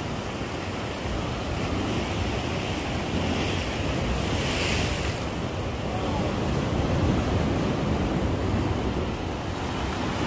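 Sea waves washing against a rock breakwater, with wind buffeting the microphone. A louder, hissing wash of water comes about halfway through.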